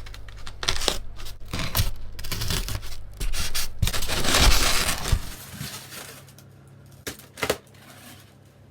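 Styrofoam packaging being opened and handled: a busy run of scraping, rustling and knocks, loudest about four to five seconds in, then quieter with a couple of sharp knocks near the end.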